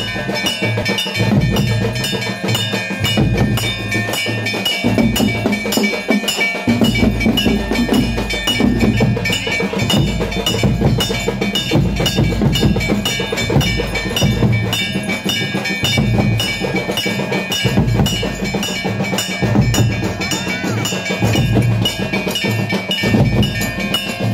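Temple festival percussion: drums beating with bells ringing steadily over them.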